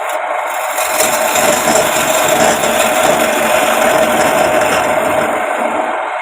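Wood lathe running steadily with a constant hum. The sound grows fuller and louder from about a second in and eases back near the end.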